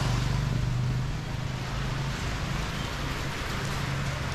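Steady hiss of rain on a wet street, with the low hum of a car engine running, loudest in the first second.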